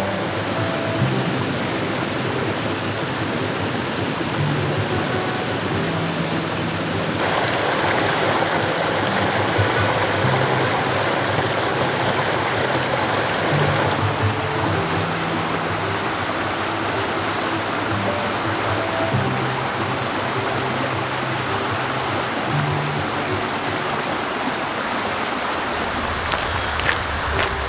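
Mountain stream rushing over rocks and a small cascade, a steady wash of water that gets brighter and louder about seven seconds in. Soft background music with slow low notes plays over the water.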